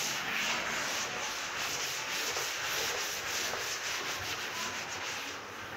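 A duster being rubbed across a chalkboard, wiping off chalk writing: a continuous scrubbing, rubbing sound.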